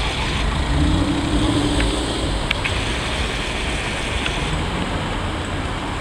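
Jaguar XKR coupé's supercharged V8 pulling away and driving off, a steady low engine rumble mixed with street traffic, its note briefly rising about a second in.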